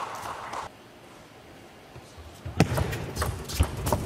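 Table tennis ball in play: after a quiet moment, a quick run of sharp clicks of the celluloid-type ball on the bats and table begins about two and a half seconds in, over arena murmur.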